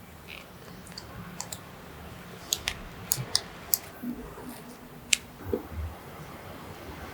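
A few sharp, light clicks and taps at irregular intervals, most bunched together in the middle, with one louder click a little after five seconds.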